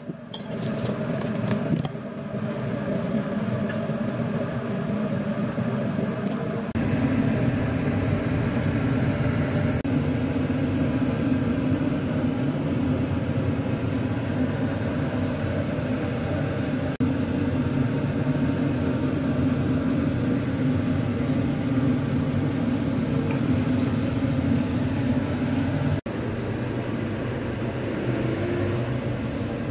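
Steady hum of a kitchen appliance fan, changing in tone about seven seconds in and again near the end. Cling film crinkles briefly at the very start.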